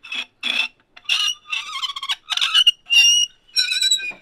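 Squeaking and creaking as the suppressor is worked into a bench vise: two short creaks, then a run of longer squeals that rise and fall in pitch.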